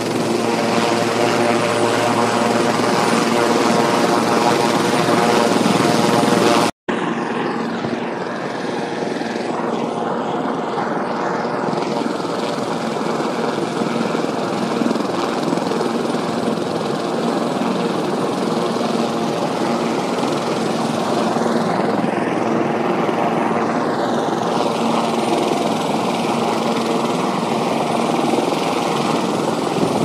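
DJI Mavic Pro quadcopter's propellers humming steadily over the constant rush of a waterfall. The sound cuts out for a moment about seven seconds in; after that the water's rush dominates and the drone's hum is fainter.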